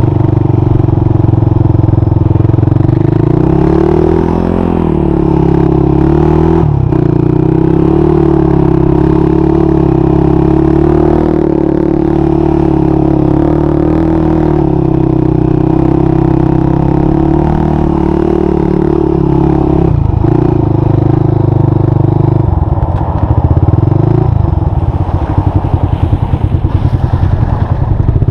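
Honda 400EX sport quad's single-cylinder four-stroke engine running right under the rider, its pitch rising and falling with the throttle. Near the end it settles to a choppy idle.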